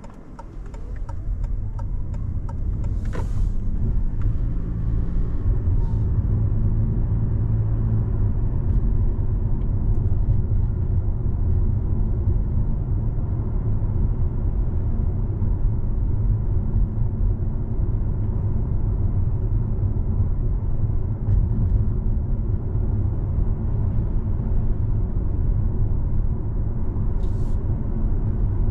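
Road and engine noise of a car being driven: a steady low rumble that builds over the first few seconds as the car gathers speed, then holds.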